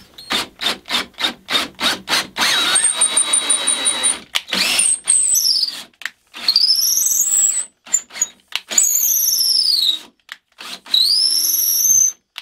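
Cordless drill driving an M10 tap into a 9 mm hole in the end of a wooden handle. It begins with about six quick trigger pulses, then runs steadily for a couple of seconds with a high whine, then runs in several separate bursts, the motor's whine rising as it speeds up and falling as it slows.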